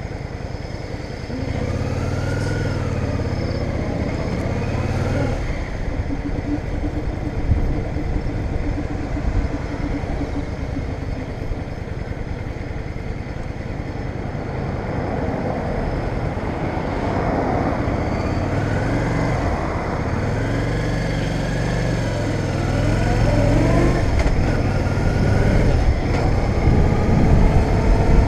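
Yamaha DragStar Classic's V-twin engine running under way, accelerating through the gears twice, with steady wind noise that grows louder as speed builds toward the end.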